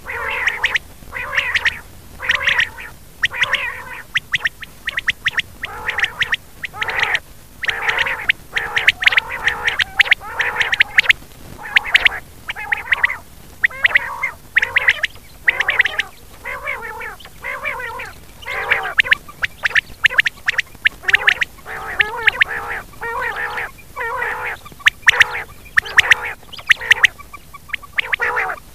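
Rain quail calling over and over in quick clusters of short, sharp notes with brief pauses between them. This is a recorded lure call, played to draw quail in for netting.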